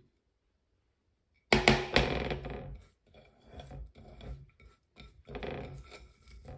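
After a second and a half of silence, a wooden spatula knocks sharply against a nonstick frying pan holding minced pork and herbs. Scattered scraping and clattering follow as the food is handled.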